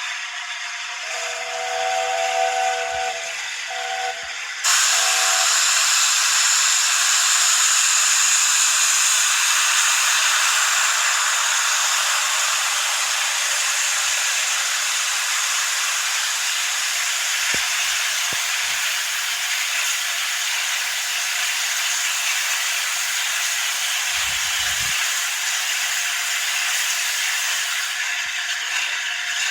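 Steam locomotive 60163 Tornado sounds its whistle in a few short blasts, several notes at once. Then steam starts to hiss out with a sudden loud, steady rush that runs for over twenty seconds and eases slightly near the end.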